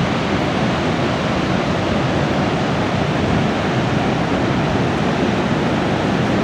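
Steady, loud rushing roar of falling water from Niagara Falls, mixed with wind on the microphone.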